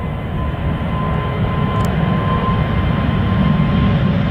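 Airbus A350's Rolls-Royce Trent XWB turbofans at takeoff thrust during the takeoff roll: a deep rumble with a steady fan whine, growing louder as the jet approaches and rotates.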